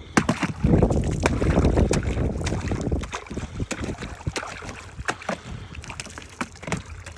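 Wind buffeting the microphone in a snowstorm, heaviest in the first three seconds, with irregular clicks and knocks throughout.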